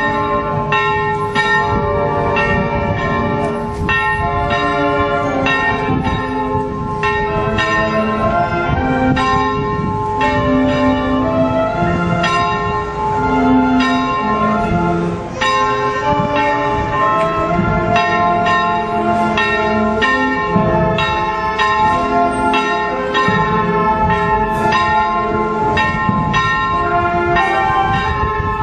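Church bells ringing a festive peal: several bells struck in quick, irregular succession, their tones ringing on and overlapping.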